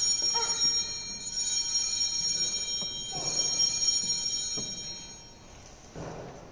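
Sanctus bells, a cluster of small altar bells, rung together and left to ring out, fading away about five seconds in. Altar bells rung like this mark the elevation at the consecration of the Mass.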